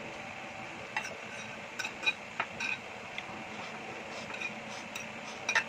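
Light, scattered clinks and scrapes on a ceramic plate as the last of the food is eaten from it, a dozen or so short ticks over a steady hiss.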